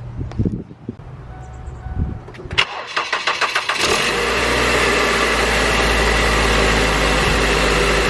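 A few knocks, then the 2006 Ford Focus's engine is cranked by the starter for about a second, catches and settles into a steady idle.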